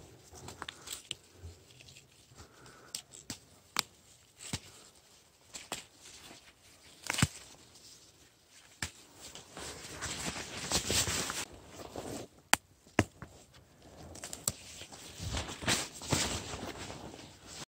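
Footsteps and rustling in dry leaf litter and pine needles, with scattered sharp clicks; the rustling thickens about ten seconds in and again near the end.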